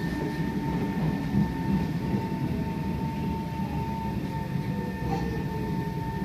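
An SMRT C151 metro train running, heard on board: steady rail and wheel rumble with a high steady whine, and a motor tone falling slowly in pitch as the train slows.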